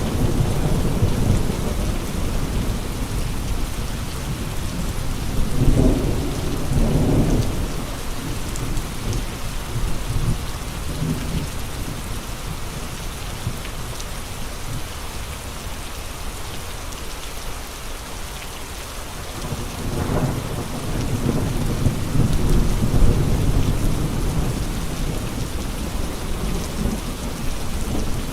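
Steady heavy rain with gusting wind: low rumbling swells rise about six seconds in and again from about twenty seconds on, easing to a calmer patter in between.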